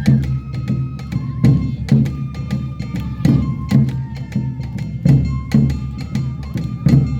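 Awa odori festival music: a bamboo flute playing a melody of held notes over a steady two-beat pattern of drums and bright percussion, about two strokes a second.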